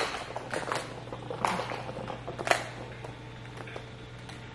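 Footsteps on a hard floor, a few irregular steps roughly a second apart that stop after about two and a half seconds, over a steady low hum.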